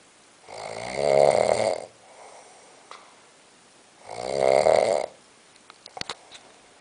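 A person snoring: two long, loud snores about three and a half seconds apart, with quiet breathing between them. A few faint clicks follow near the end.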